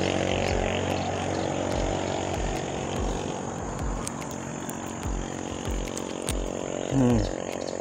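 An unseen engine running steadily, slowly fading, with a low thud repeating about three times a second.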